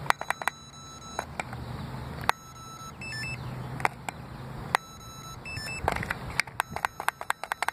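Electronic beeps from a Sky Viper Hover Racer drone and its controller, with many sharp clicks of its buttons being pressed, over a low steady hum. The drone is failing to auto-launch.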